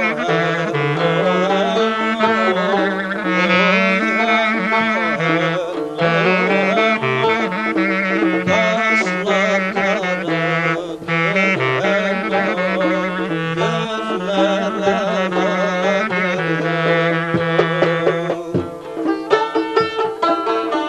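Traditional Harput folk music: a clarinet plays a winding, heavily ornamented melody over sustained lower notes, accompanied by a cümbüş. About 19 seconds in, the cümbüş's quick plucked strokes come to the fore.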